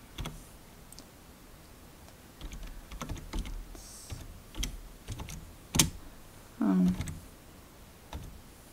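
Computer keyboard typing: slow, scattered keystrokes at an uneven pace, with one louder key stroke about six seconds in. A short low hum follows just after it.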